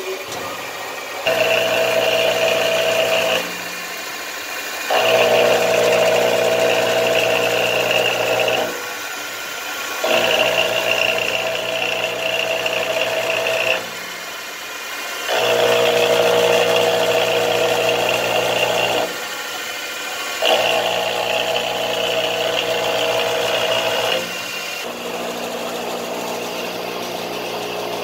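Enshu milling machine running through repeated cutting cycles: a steady machining whine with a low motor hum, loud for three to four seconds at a time. It drops back to a quieter running sound for a second or so between cycles, repeating about every five seconds.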